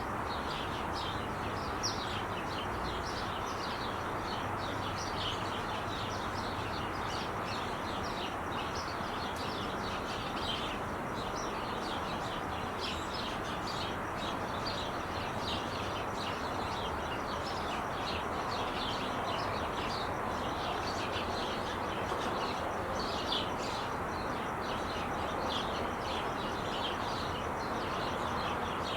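Steady roar of freeway traffic, with many small birds chirping busily over it.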